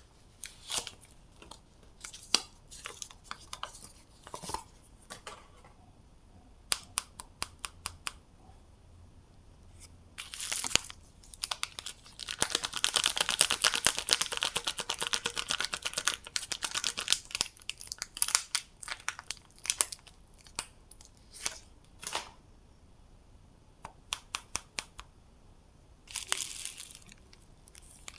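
Soap wrappers being torn open and crinkled by hand: scattered crinkles and clicks, with a few short bursts of tearing and a longer stretch of steady tearing and rustling in the middle.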